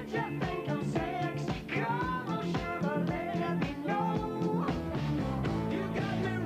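An excerpt of a 1970s hit song: a singer over a full band with a steady beat.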